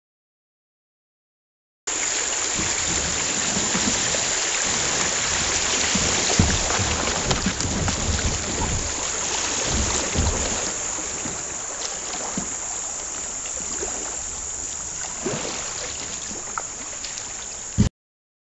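Dead silence for about two seconds, then the steady rush of shallow river water running over rocks around a kayak, with a few low bumps, cutting off suddenly near the end.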